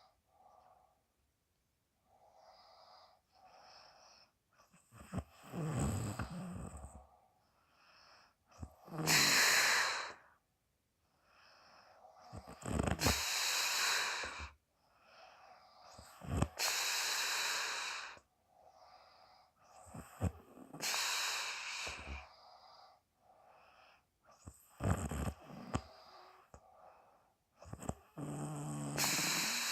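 A sleeping woman snoring with loud puffed breaths blown out through the mouth, about one every four seconds, several carrying a low snore buzz, with softer breaths between.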